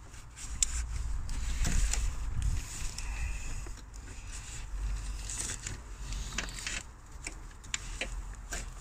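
Hands working a plastic electrical connector and hoses on an auxiliary water pump in an engine bay: scattered clicks and scrapes, over rubbing and low rumble from handling noise.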